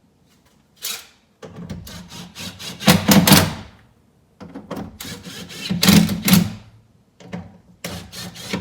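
Cordless impact driver (torque gun) driving the door airbag's small mounting fasteners, in three short runs of about two seconds each. Each run rattles harder toward its end as the fastener seats.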